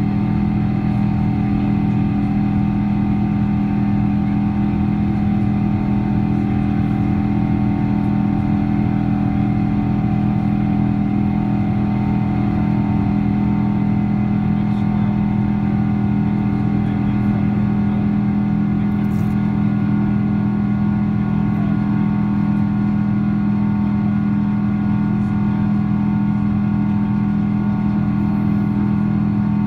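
Steady cabin drone inside a Boeing 777-200 climbing after takeoff: engine hum with a strong low steady tone under a rushing airflow noise, unchanging throughout.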